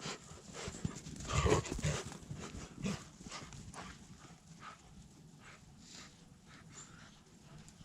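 German Shepherds playing in deep snow: a run of short, irregular scuffling strokes, loudest about a second and a half in.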